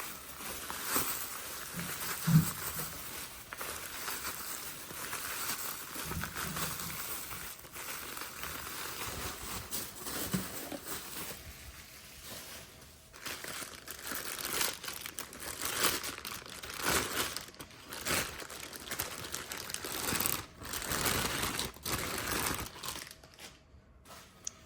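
Bubble wrap and plastic packaging crinkling and tearing as it is pulled off a boxed part, with a knock about two seconds in.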